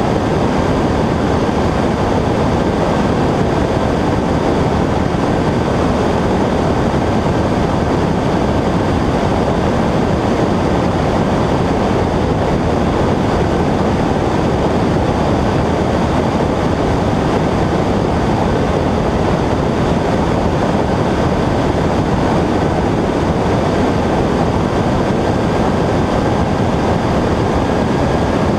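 Cessna 120 light aircraft in steady flight: engine and propeller running at an even pitch under rushing air noise, with a faint steady high tone above it.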